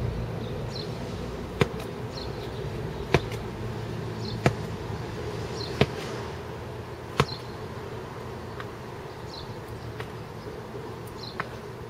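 A medicine ball slammed onto the ground, five sharp thuds about a second and a half apart. After that only faint knocks follow, over a steady low background hum.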